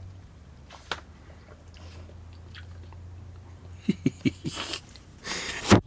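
Dog biting and chewing on a treat: a few short bites about four seconds in, then a louder, noisier crunch near the end, over a steady low hum.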